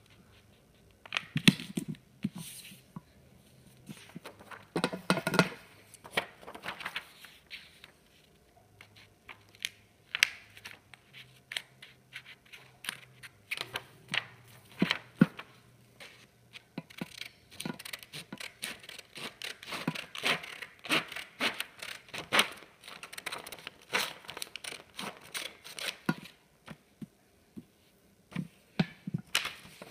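A sheet of paper being folded, creased and cut with scissors: irregular snips and crinkling rustles, with some sharper clicks.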